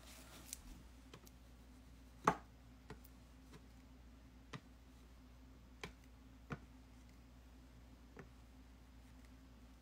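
Scattered light clicks and knocks, the loudest a little over two seconds in, from oil pigment sticks being picked up, set down and worked against the painting panel, over a faint steady room hum.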